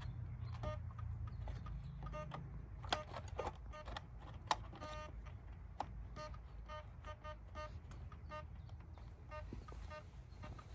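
Runs of short electronic beeps, all at one pitch, about four or five a second, among scattered clicks and knocks as parts of an RC glider are handled, over a low steady hum.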